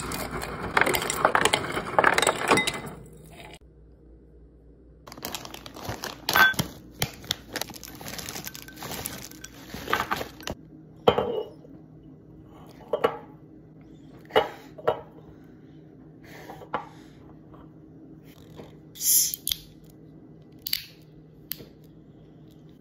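Ice cubes clattering out of a refrigerator door dispenser into a glass for about three seconds. After a pause comes a run of separate sharp clicks and crackles as the screw cap of a plastic drink bottle is twisted open.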